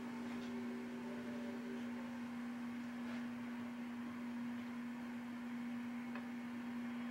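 A steady low hum over faint hiss, with a few faint ticks.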